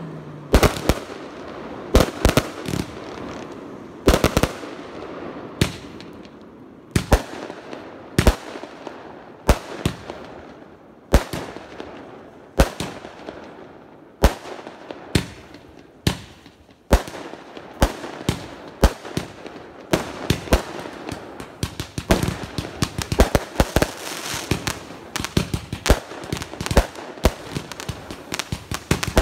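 Consumer fireworks going off: a string of sharp bangs about a second apart over a crackling hiss. The bangs and crackle come thicker and faster near the end.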